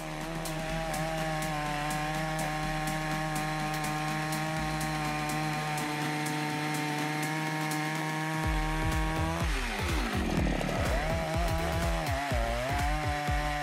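Chainsaw running at a steady high speed, then dropping in pitch and wavering as it bites into wood, about nine and a half seconds in.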